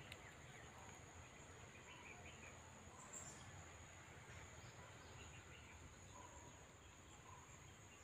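Near silence: faint garden ambience with a steady high-pitched insect trill and a few faint short chirps.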